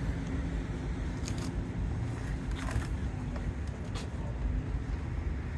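Steady low rumble with a faint constant hum, with a few light clicks from the unpacked model being handled.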